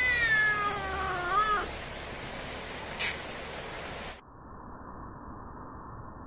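Tabby house cat giving one long, drawn-out meow that falls in pitch and lifts briefly at the end. About three seconds in there is a single sharp click.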